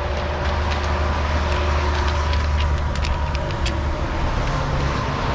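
Steady rumble of road traffic with faint tyre whine, with a few light crunching footsteps on railway ballast.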